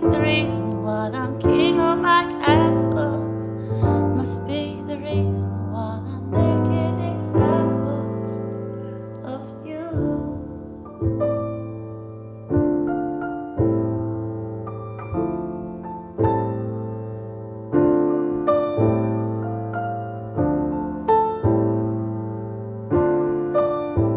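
Grand piano played four-hands in a slow ballad: chords struck about once a second, each left to ring and fade. A sung vocal line runs over the first ten seconds, then the piano carries on alone.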